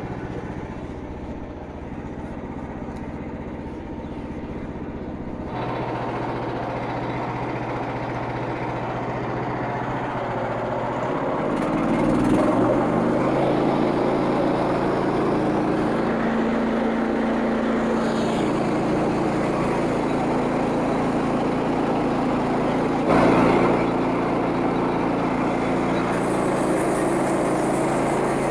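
Petrol engine of a Frontier OS27 band sawmill running steadily. Its note changes about five seconds in, and from about eleven seconds it grows louder and rougher as the band blade is power-fed through a log, with a short louder burst near 23 seconds.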